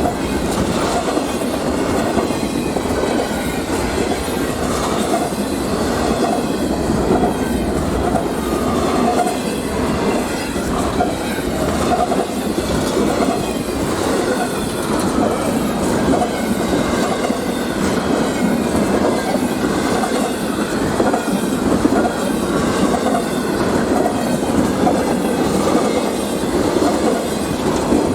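Freight train cars rolling past on steel wheels, clattering steadily over the rail joints.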